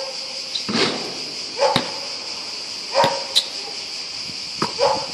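Steady high-pitched insect buzz, typical of cicadas in trees. Short loud calls break in about once a second, with a couple of sharp knocks.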